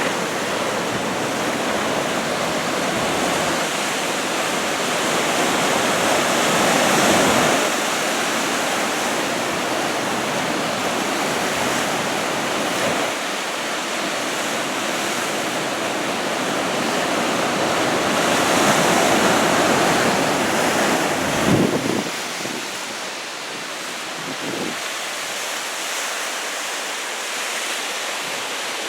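Large typhoon-swell surf breaking on the shore: a continuous wash of waves that swells louder about a quarter of the way in and again past the middle, with some wind buffeting the microphone.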